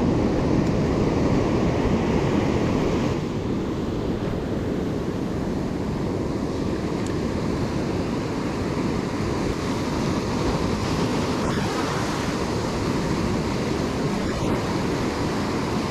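Ocean surf breaking and washing up a shallow sandy beach in a steady rush, with wind buffeting the microphone.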